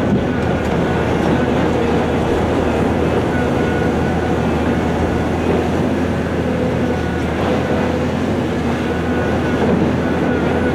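Heavy quarry machinery at work, a Volvo EC700 excavator loading a Perlini 655 dump truck: big diesel engines running with a steady, loud rumble. A faint high whine comes and goes over it.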